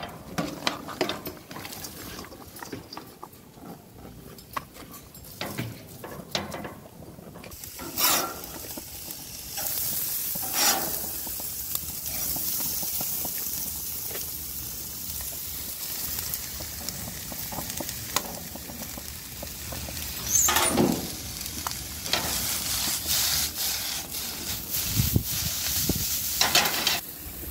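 Sliced vegetables sizzling in oil in a sauté pan on a gas grill's side burner: a steady hiss that grows louder about ten seconds in. Clicks and scrapes of a spatula stirring the pan sound over it.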